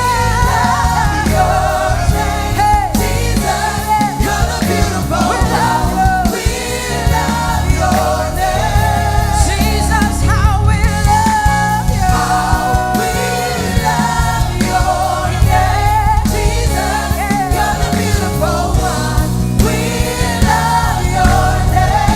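Live gospel worship music: singers holding and bending sustained notes over a band with bass and drums.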